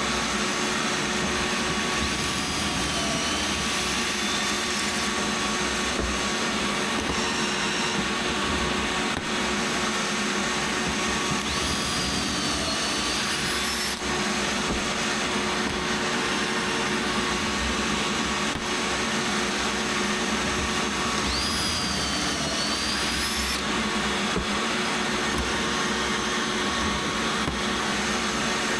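Steady, loud motor noise from drilling pocket holes with a pocket-hole jig and drill, like a shop vacuum running, with a higher whine that rises and falls a few times.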